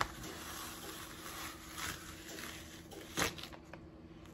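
Dark transfer paper being peeled off a sticky Cricut cutting mat: a soft, steady rustle as the sheet comes away smoothly without ripping, with a sharper crackle about three seconds in.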